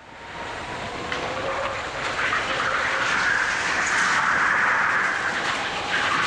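Go-kart driven at speed, heard from a camera mounted on the kart: a loud, steady rush of engine and tyre noise. It fades in at the start and begins fading out near the end.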